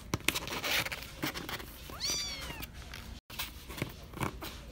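Four-week-old kitten giving one short meow about two seconds in, rising then falling in pitch, amid faint rustling and a few light clicks.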